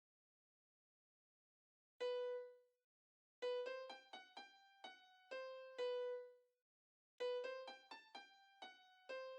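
Background music: a keyboard melody of short struck, fading notes in an electric-piano sound, coming in about two seconds in.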